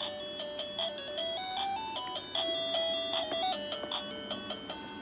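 A simple electronic melody of plain beeping tones, stepping up and down in pitch for about five seconds, like a toy's or an appliance's built-in tune, over a faint steady hum.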